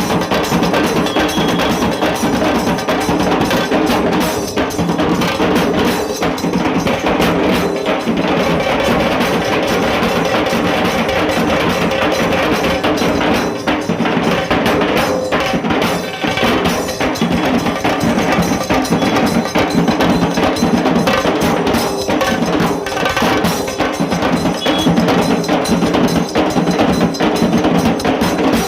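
Dhol tasa ensemble playing: dhol and tasa drums beaten in a fast, dense, unbroken rhythm, loud throughout.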